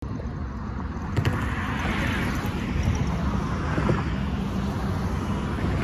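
A car driving past and away, its tyre and engine noise swelling about two seconds in and then fading, over a ragged low rumble.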